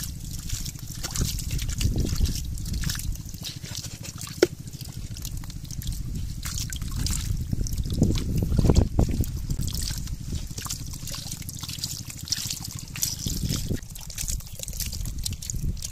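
Shallow water trickling and dribbling down a cut-open pipe into a plastic basket trap, with small wet splashes and crackles from catfish wriggling through it. A low rumble runs underneath.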